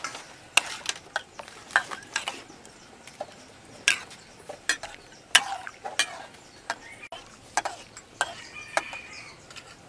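Metal ladle clinking and scraping against a steel wok while stirring shrimp in boiling water, in sharp irregular knocks over a faint bubbling hiss.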